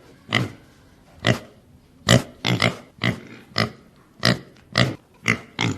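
Domestic pig grunting: a series of short, sharp grunts, about two a second and slightly uneven.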